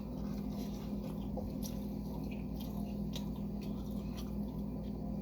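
A person chewing food, with scattered small wet mouth clicks, over a steady low hum.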